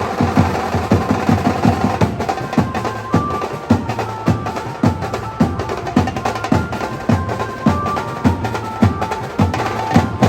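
Indian banjo party street band playing: a banjo melody over a steady, driving drum beat.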